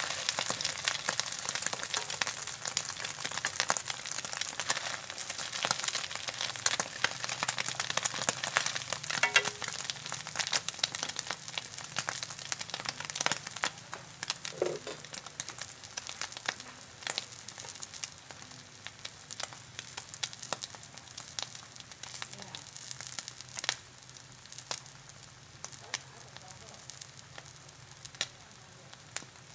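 A beaten duck egg and fish roe mixture frying in hot oil in a pan, sizzling with dense crackling pops that slowly die down.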